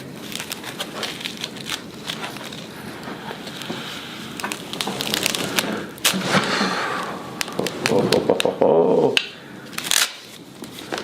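Rapid clicking and crackling during a chiropractic spinal adjustment, many small sharp clicks, growing louder and denser from about six to nine seconds in.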